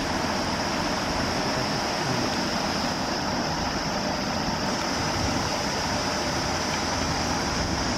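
Steady rush of water pouring from an outlet in a stone canal wall into the water below.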